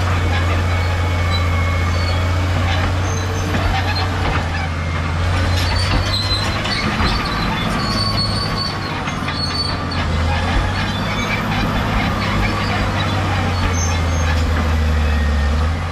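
Caterpillar D7G crawler bulldozer working, its diesel engine running steadily under load while the steel tracks clank and squeal. The high track squeals come thickest from about five to nine seconds in.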